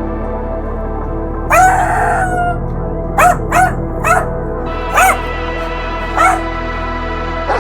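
Dog barking over steady background music: one drawn-out bark about a second long, then a string of short single barks at uneven intervals.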